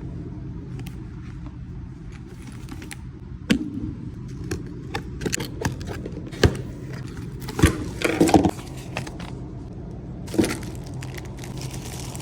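Small handheld electronics vacuum running with a steady low hum, while its nozzle clicks and scrapes against hard surfaces, with a few sharper knocks.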